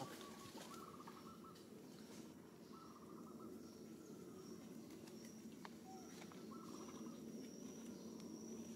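Faint outdoor ambience of birds and insects: a short trilling call comes three times, and a thin, high, steady insect tone comes in about halfway.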